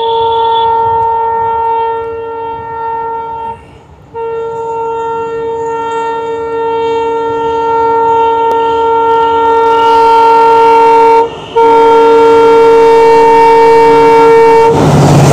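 Diesel locomotive horn sounding three long blasts as the train approaches: about four seconds, a short gap, a long blast of about seven seconds, then a brief break and one more of about three seconds, each louder than the last. Near the end the horn stops and the locomotives' engine and wheel noise come in loudly as they pass close by.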